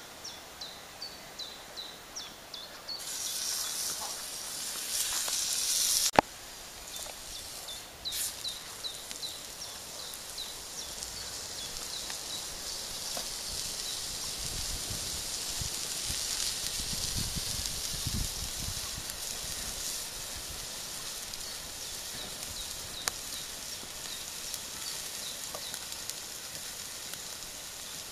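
A wild boar steak sizzling on a hot clay plate over a campfire, a steady high hiss that swells, breaks off abruptly about six seconds in, and builds again for the rest of the time. Short high chirps repeat about three times a second in the background at the start, around eight seconds in and near the end.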